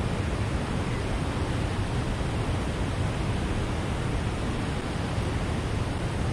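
Steady rush of water pouring through the dam's gates, an even noise with no breaks.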